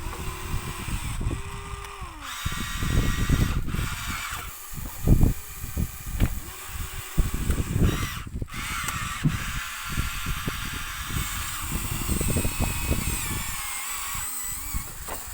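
Small electric motors whining, their pitch gliding and stepping up and down as they start and stop, over low bumping and rumbling.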